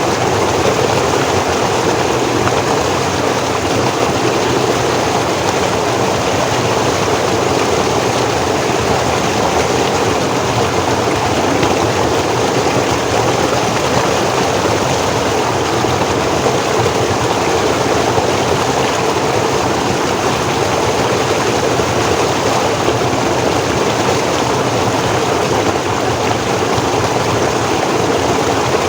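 Forest stream flowing over rocks: a steady, even rush of water with no breaks.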